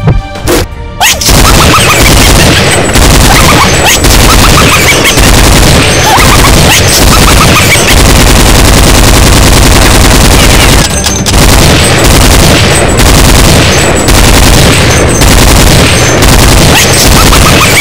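Loud, unbroken barrage of rapid machine-gun-fire sound effects, starting about a second in after a short stretch of music.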